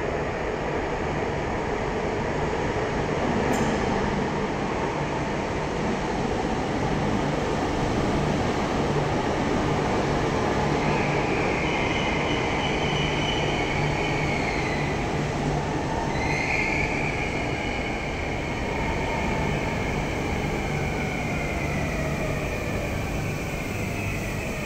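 Renfe series 465 (Civia) electric commuter train pulling into an underground station platform and slowing, a steady rumble of wheels on rail. From about halfway high whining tones join in; they dip and rise once, then glide downward as the train slows.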